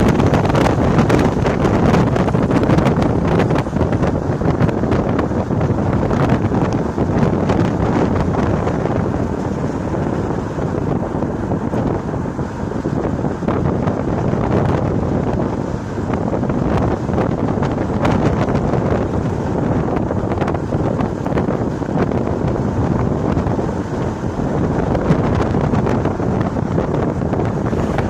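Steady wind rush and buffeting on the microphone from a moving car, with road noise under it and frequent brief flutters.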